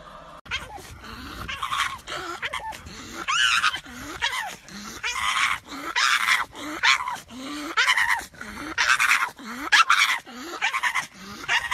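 A pug making a string of short, repeated vocal calls whose pitch curves up and down, about one or two a second, over wind noise.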